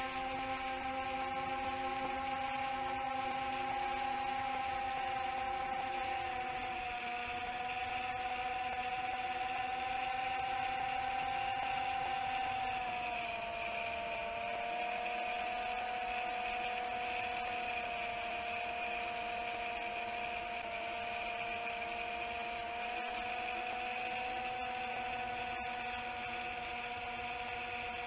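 Chimera 7 long-range FPV quadcopter's brushless motors and propellers whining steadily under climbing throttle. The pitch drops slightly about halfway through as the throttle eases off.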